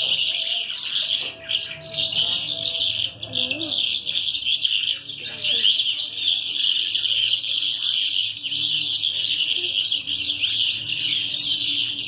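Many small birds chirping in a dense, unbroken chorus of high, quick notes.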